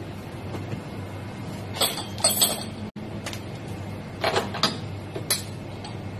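Metal clinks and knocks as an espresso machine's portafilter is handled and fitted into the group head: a few sharp clinks about two seconds in and a few more between four and five seconds, over a steady low hum.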